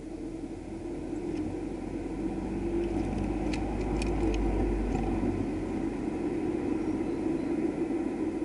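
Steady low rumble, swelling slightly around the middle. About halfway through come a few light, sharp taps as a great tit lands among the seed on the feeder tray.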